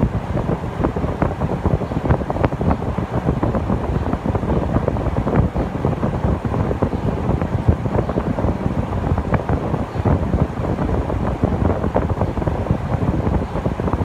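Saijo Denki air conditioner outdoor unit running, its metal-bladed condenser fan blowing a steady low rush of air with buffeting on the microphone.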